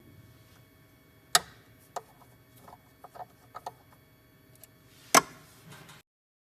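Hands working the probe of a CNC key cutting machine, pulling it out. Two sharp clicks, one about a second in and one near the end, with lighter clicks and taps between them.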